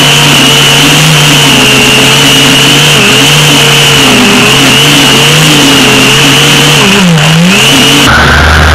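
Gas string trimmer (weed eater) engine running at high throttle as the line cuts through weeds and grass. About seven seconds in the engine pitch drops briefly and climbs back as the throttle is eased and reopened, and just after eight seconds the sound changes abruptly to a lower, steadier hum.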